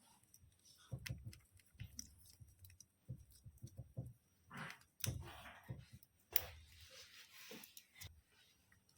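Faint, irregular clicks and light knocks of hand work on small parts, coming at uneven intervals.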